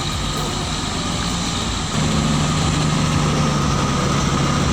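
Heavy truck engine running under load, growing louder with a steadier low drone from about two seconds in.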